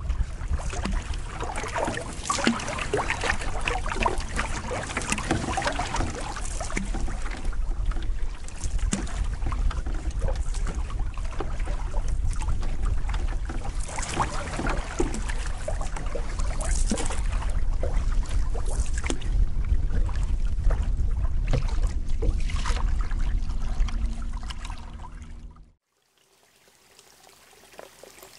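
Wind rumbling on the microphone over water slapping and splashing around a canoe hull as it is paddled into a headwind. About 26 seconds in it cuts off suddenly to a much quieter trickle of water.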